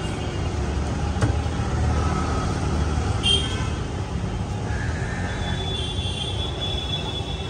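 Street traffic noise: a steady low rumble of passing vehicles, with a brief click about a second in.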